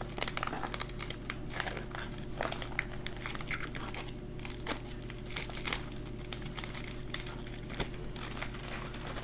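MRE dried fruit mix packet, just slit down its side, crinkling as hands pull the laminate pouch and inner wrapper apart: irregular crackles and rustles over a steady low hum.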